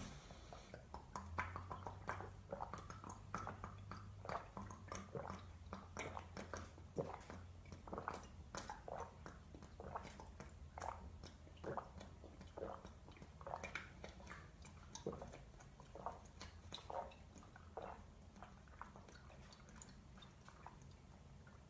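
A man gulping a drink straight from a glass bottle in one long chug: a steady run of quiet swallows, about one or two a second.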